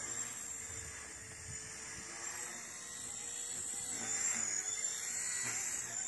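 WLtoys V911S micro RC helicopter's electric motor and rotor whining at a high pitch in flight, the pitch wavering up and down as the throttle changes.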